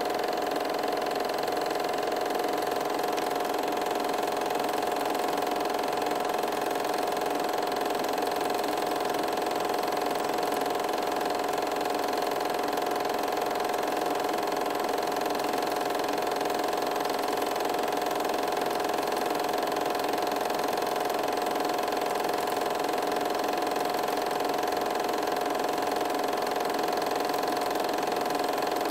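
Steady whir of a running 8mm film projector mechanism, an even mechanical hum with a strong mid-pitched tone that does not change.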